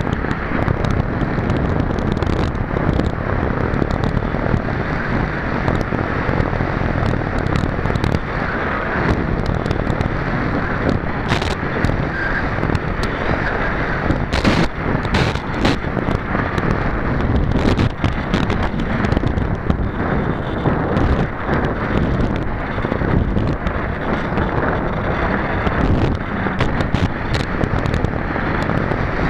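Airflow rushing over the nose-mounted camera of a Pulsar 3.2 m electric sailplane gliding with its motor off: steady wind noise on the microphone, broken by scattered crackles and pops.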